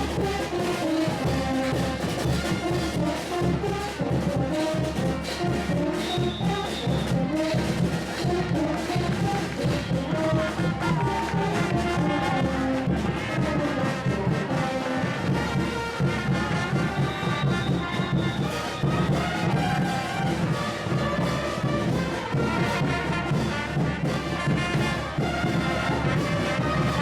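Brass band playing traditional Bolivian parade music, with trumpets and trombones over a steady drum beat.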